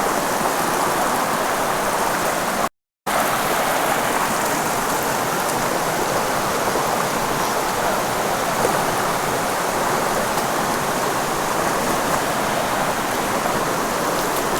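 Steady rush of creek water and a waterfall, with a split second of dead silence about three seconds in.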